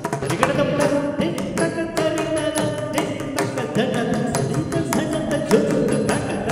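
Live Carnatic dance music in raga Kumudakriya set to Roopaka tala: a sung melody with gliding notes over a steady run of mridangam strokes.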